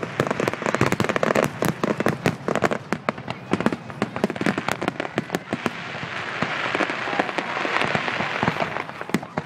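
Fireworks display in full flow: a rapid, dense string of bangs and pops from bursting aerial shells. About halfway in, a hissing crackle swells up, then eases off near the end.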